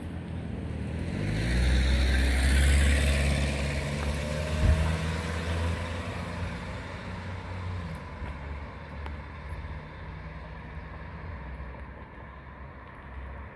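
A motor vehicle drives past on the street: engine and tyre noise swell over the first couple of seconds, peak, then fade away over the next few seconds, with one short knock near the loudest point. A low steady background hum remains.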